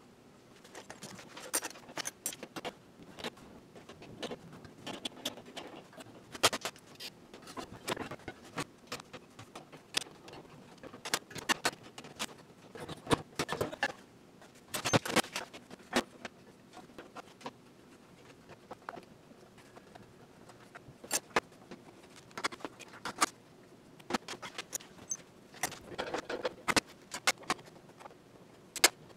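Irregular metallic clinks, clicks and clatters of an old enamelled gas range's parts and hand tools being handled during repair work, with a cluster of louder clatters about halfway through and again near the end.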